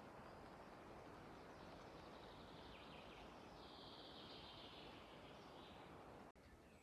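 Near silence: faint outdoor ambience, with a faint high trill about midway.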